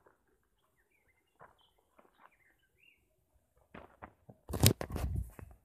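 Faint bird chirps, then from near four seconds in a burst of rustling, knocks and low rumbling as the camera lying on the ground is picked up and handled, the loudest part just before the end.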